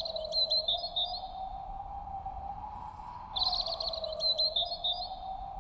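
Birdsong sound effect over a wind ambience. Two bird phrases, each a quick trill followed by a few chirps, the second starting a little past halfway, over a steady, slowly wavering whistle of wind.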